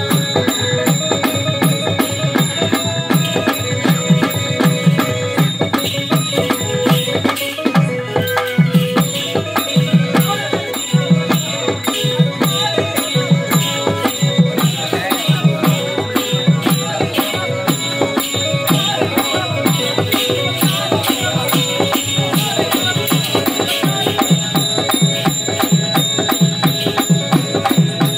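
Live folk drumming for a Kali dance: hand drums beating a driving, repeating rhythm with rattling jingles over a steady harmonium drone, played through loudspeakers.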